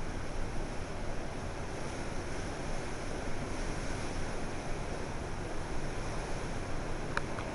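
Hurricane wind blowing hard through palm trees and buffeting the microphone: a steady rushing noise with a gusty low rumble. A brief faint chirp sounds near the end.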